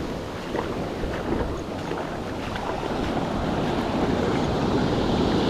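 Surf breaking and washing up the beach, with wind buffeting the microphone; the wash swells louder over the last couple of seconds.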